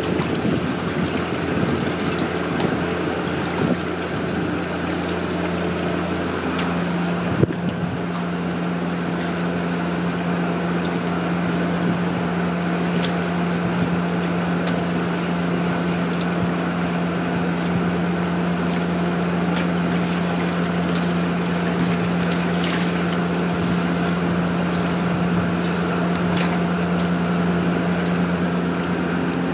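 A steady low motor hum runs throughout, with water sloshing and splashing as a crowd of nurse sharks thrashes at the surface. The hum shifts slightly about seven seconds in.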